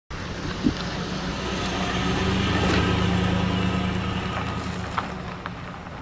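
A van driving off along a gravel road, its engine and tyres growing louder for the first few seconds, then fading as it pulls away. A sharp click sounds near the start.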